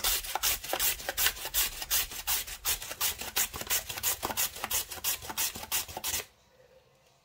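A carrot is rubbed back and forth over a plastic julienne grater with metal blades, giving quick rasping strokes about four a second. The strokes stop suddenly about six seconds in.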